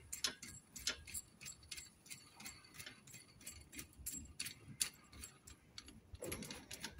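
Faint, irregular light clicks, several a second, as a home-made threaded-bar bush press with sockets is wound up by hand to take up the slack against a rear shock absorber's lower bush.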